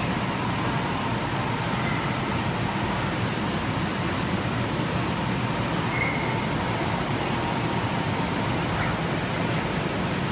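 Steady rushing noise from the electric blowers that keep the inflatable slides inflated, with a few faint, brief calls from distant children.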